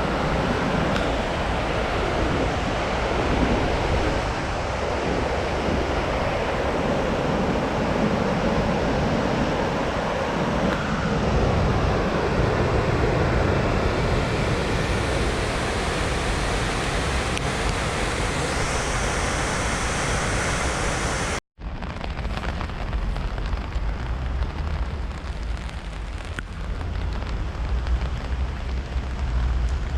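Rushing water of a small river swollen after rainfall, a steady loud wash. It cuts out for a split second about two-thirds through and then carries on with a slightly duller tone.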